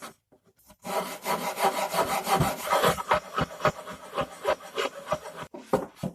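Hand tool scraping and shaving the edge of an MDF panel in quick, repeated strokes, trimming high spots so the panel sits flush. The scraping starts about a second in, runs densely for about four seconds, then thins to a few single strokes near the end.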